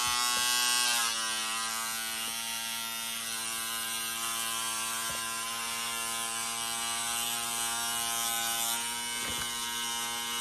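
Steady electric buzz from a small motor, holding one pitch that dips slightly about a second in and then runs on evenly.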